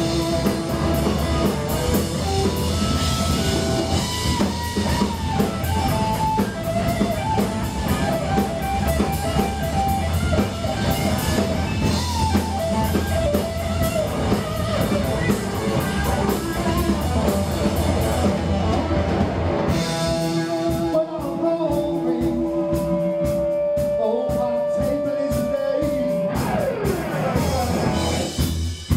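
Live rock band playing an instrumental stretch on electric guitars, bass guitar and drum kit. About twenty seconds in the drums and bass drop out, leaving a guitar holding a long note and then sliding down in pitch before the full band comes back in at the very end.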